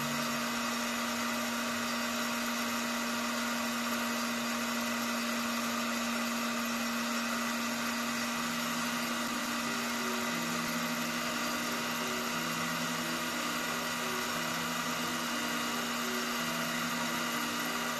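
Router with a V-cutter running steadily as it cuts a pattern into the face of a cherry blank on a rose engine. It cuts smoothly, without shudder or kickback. From about eight seconds in, a lower tone comes and goes under the steady whine.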